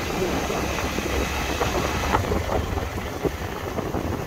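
Motorcycle engine running steadily while riding at road speed, with wind rushing over the microphone.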